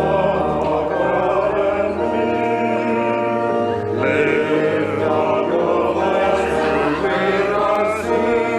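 Church congregation singing a hymn together, with organ accompaniment holding long, steady chords underneath.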